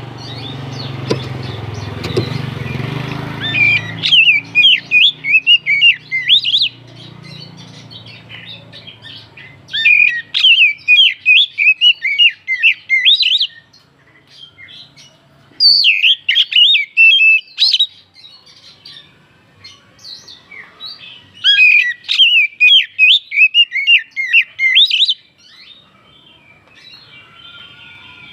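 Oriental magpie-robin song: four loud bursts of rapid, varied chirps and whistles, each a few seconds long, with pauses between. A low rumble fills the first few seconds.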